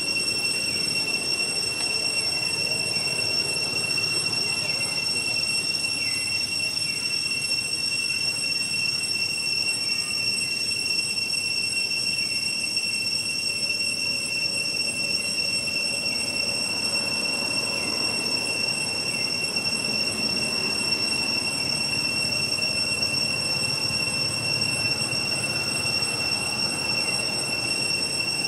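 Steady, high-pitched insect drone, unbroken and even in level. In the first half, faint short falling calls repeat about every two seconds.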